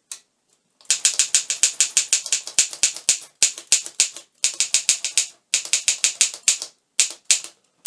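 Underwood manual typewriter being typed on quickly: runs of sharp key-and-typebar clacks, about eight to ten a second, in several bursts with short pauses between them.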